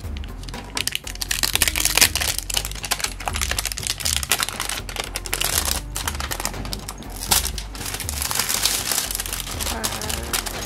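Clear plastic shrink-wrap crinkling in quick, irregular crackles as it is pulled off a cardboard box, over background music with a steady low beat.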